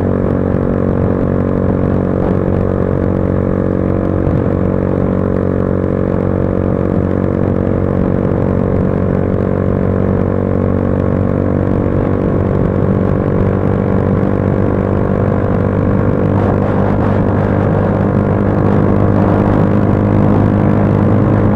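Motorcycle engine running at a steady cruising speed on the highway, a constant drone that gets slightly louder in the last few seconds.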